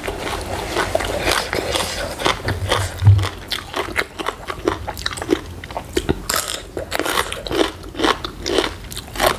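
Close-miked crunching and chewing of raw vegetables, many crisp crunches in quick succession, with one louder low knock about three seconds in.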